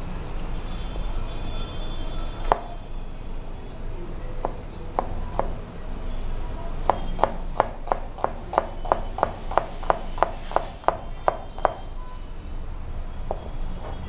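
Chef's knife chopping a red onion on a plastic cutting board: a few separate knocks, then about halfway in a quick, even run of about three chops a second lasting some five seconds, then one last chop near the end. A steady low hum lies underneath.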